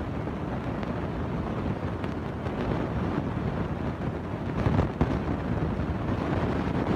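Small homemade tractor's engine running hard under load as it pulls against a vehicle chained behind it: a rough, steady engine noise with a brief louder surge about four and a half seconds in.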